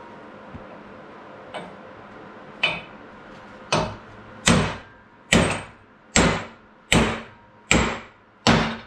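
Hammer blows on a metal drift, driving a part that is stuck fast out of the frame of an old arbor press: two lighter taps, then seven hard ringing strikes at a steady pace, a little under one a second.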